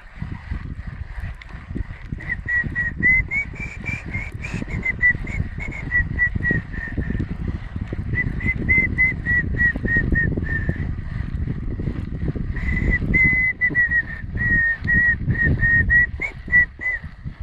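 A person whistling a tune: a string of short notes that rise and fall in pitch, over steady low rumbling noise.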